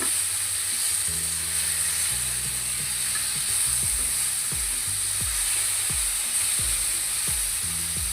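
Brinjal pieces and fried lentil dumplings (dal bori) sizzling in hot oil in a pan as they are stirred together with ground coriander, a steady frying hiss. Low background music runs underneath.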